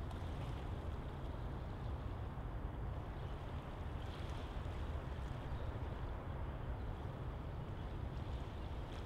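Steady outdoor background rumble, strongest in the low end with an even hiss above it, unchanging throughout with no single sound standing out.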